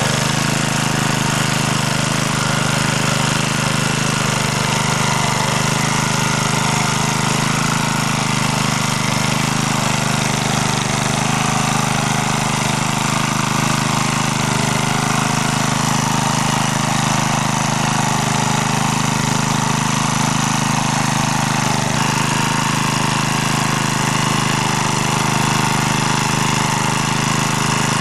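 MD3 walk-behind tractor's engine running steadily while it tills soil in first gear.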